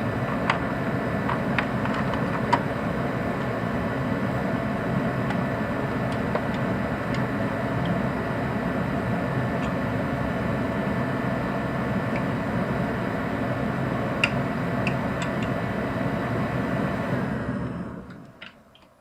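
A steady machine drone with a few sharp metallic clicks over it. The drone winds down and stops about a second before the end.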